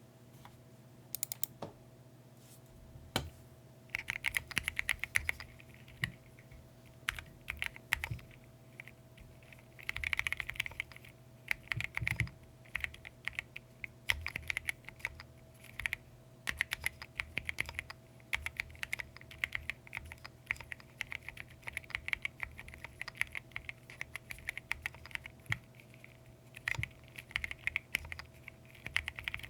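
Typing on a Keychron Q15 Max ortholinear mechanical keyboard with MDA-profile keycaps. A few single key presses come first, then steady, fast typing from about four seconds in.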